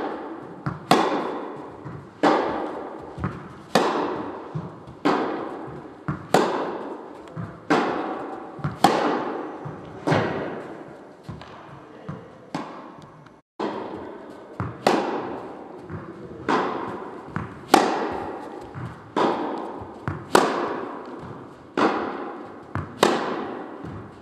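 Tennis balls struck by racquets in a steady exchange, one hit roughly every 1.3 seconds, each crack followed by a long echo. There is a short break in the sound about 13 seconds in.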